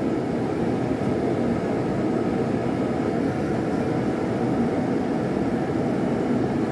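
Blacksmith's forge running steadily while the workpiece reheats: a continuous, even rushing noise with no hammer blows.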